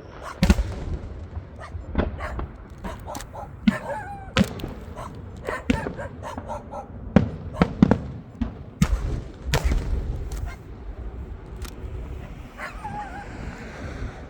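Fireworks going off in an irregular string of bangs and cracks, with deep thuds under the sharper reports and a few short wavering whistles between them.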